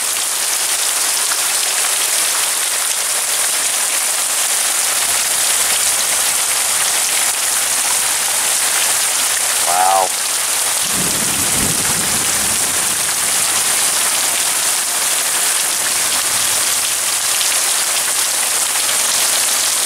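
Heavy rain pouring down in a steady dense hiss. About eleven seconds in there is a short low rumble.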